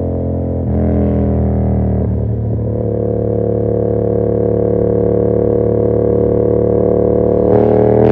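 Yamaha MT-07's 689 cc 270° crossplane parallel-twin running through an SC Project CR-T carbon exhaust while riding. It picks up a little under a second in, wavers briefly around two seconds, holds a slowly rising note, then revs up louder under harder acceleration near the end.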